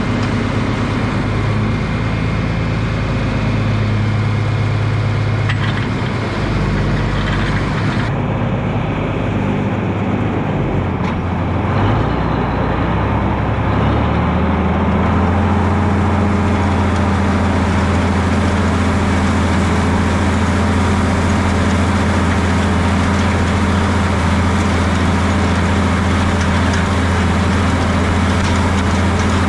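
Farm tractor engine running steadily under working load. Its pitch shifts between about 8 and 14 seconds in, then holds steady.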